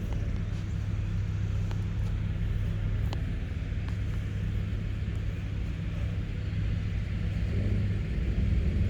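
An engine running steadily at idle, a low even hum, with a few faint ticks over it.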